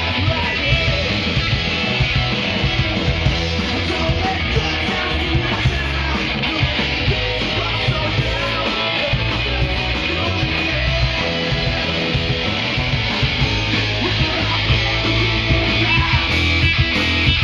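Punk rock band playing live: electric guitars, bass guitar and drums.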